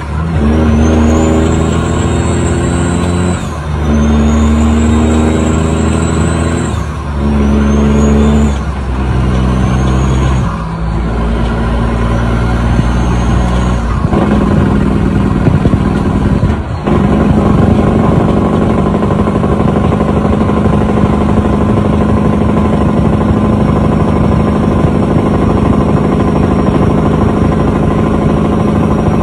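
Heavy truck's diesel engine pulling through the gears: the engine note climbs in each gear and drops back at about five upshifts in the first fourteen seconds, with a high whistle rising along with it. After that the truck cruises at a steady engine note.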